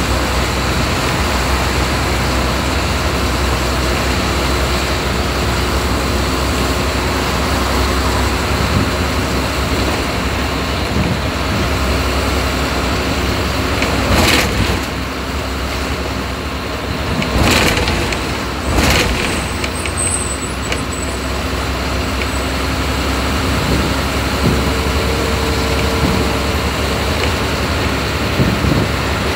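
Steady engine and road noise of a moving bus, heard from inside the cabin. About halfway through come three short loud knocks, likely the body rattling over bumps.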